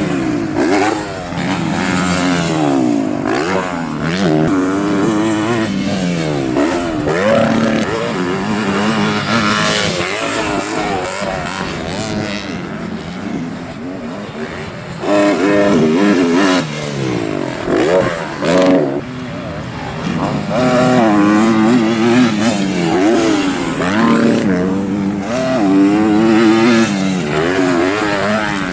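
Several four-stroke motocross bikes revving hard on a track, their engine pitch climbing and dropping again and again as riders accelerate, shift and roll off, often more than one bike at a time.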